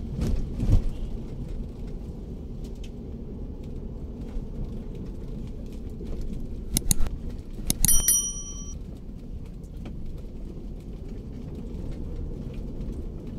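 Steady low rumble of a Daihatsu Terios's engine and tyres, heard from inside the cabin while driving. About seven seconds in, a subscribe-button sound effect: a couple of mouse clicks, then a click and a short bell ding that rings out for under a second.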